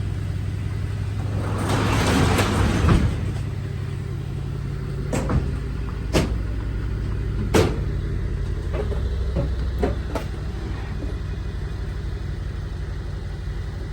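Car engine idling steadily with a low hum. A brief rush of noise comes about two seconds in, and a few sharp clicks follow later.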